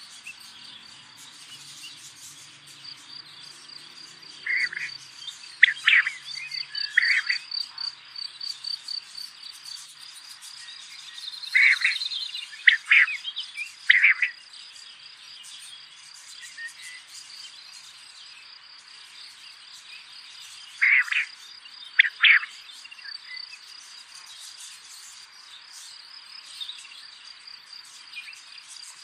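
Insects chirping in a steady, pulsing high trill, with three groups of louder short animal calls rising above it.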